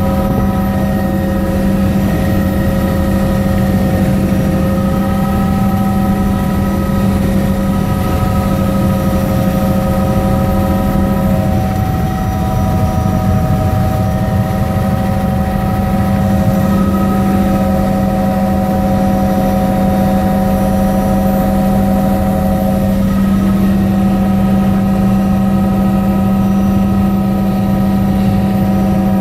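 Helicopter in flight heard from inside the cabin: a loud, steady drone with several unchanging whining tones over it.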